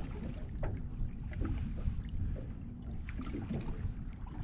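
Wind rumbling on the microphone and water lapping against the hull of a small boat, with scattered light knocks and clicks.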